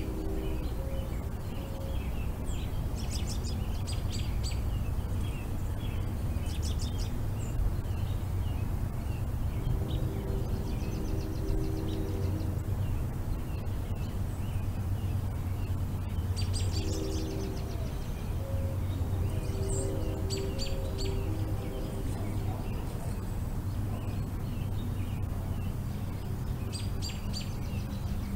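Songbirds chirping and calling in short, repeated clusters of high notes over a steady low rumble.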